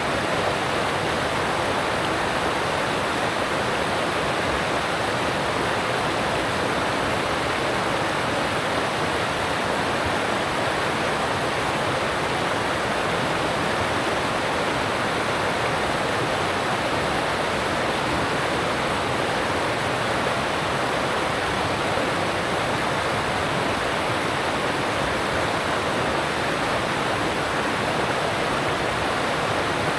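Alpine stream rushing over rocks: a steady, even rush of water with no breaks.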